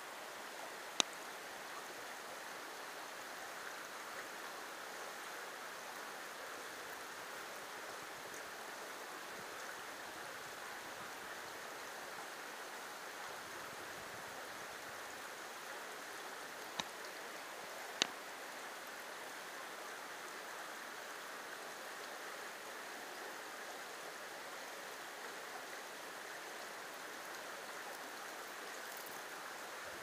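Creek water running steadily over rocks in a shallow riffle. Three sharp clicks cut through it, one about a second in and two close together past the middle.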